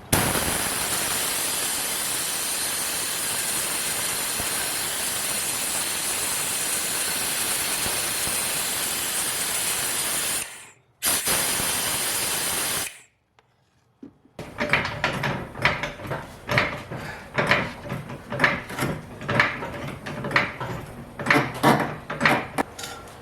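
Steady loud hiss of a brake fluid sucker drawing the excess brake fluid out of the reservoir, stopping for a moment about ten seconds in, running two seconds more and cutting off. After a short silence comes a run of irregular knocks and clicks of tools and parts being handled.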